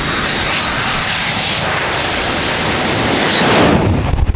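A Boeing 727's three Pratt & Whitney JT8D turbofans run on approach as the jet flies low overhead. The noise grows louder and a high engine whine drops in pitch about three and a half seconds in as it passes.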